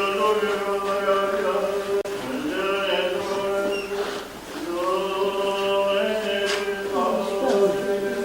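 Church choir chanting in long, held notes, with a short break in the singing about four seconds in.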